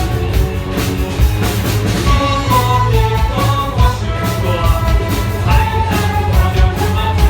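An orchestra playing a pop-style arrangement, melody lines moving over sustained bass, with a steady drum beat underneath.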